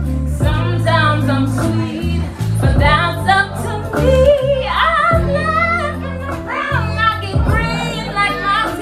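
A woman singing over a backing track with a steady, deep bass line, her melody gliding up and down between phrases.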